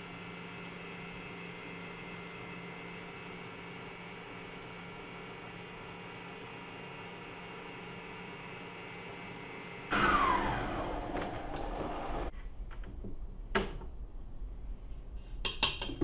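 Electric stand mixer running with a steady hum as it whips eggs and sugar. About ten seconds in, it is switched off and the motor winds down with a falling whine. A few knocks and clinks follow as the mixer head and whisk are handled.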